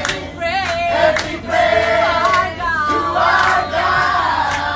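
A group of people singing together loudly inside a moving bus, their voices sliding and wavering, over the bus's low steady rumble.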